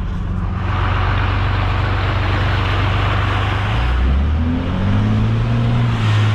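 5.9 Cummins 12-valve turbo diesel truck engine pulling on a rough trail. Its note dips about four seconds in, then climbs as it revs, and a broad rushing noise sits over it for the first few seconds.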